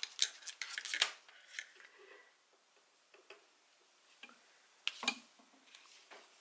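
A circular knitting needle being drawn out of the stitches while the knitted fabric is handled: light clicks and rustling in the first second, a quieter stretch, then a few more clicks about five seconds in.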